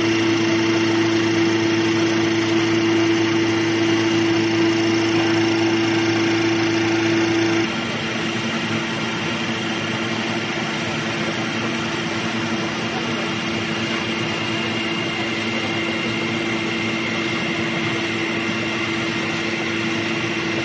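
Animal feed extrusion line machinery running: a steady mechanical hum with one strong constant tone. About eight seconds in it gets a little quieter and the deepest part of the hum falls away.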